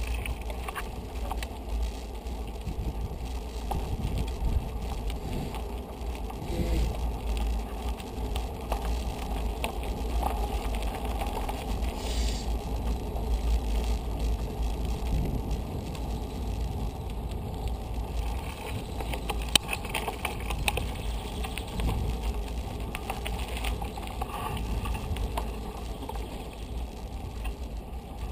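Bicycle riding noise heard from a camera on the bike: a steady low rumble of wind and tyres on the paved street, with scattered small clicks and rattles.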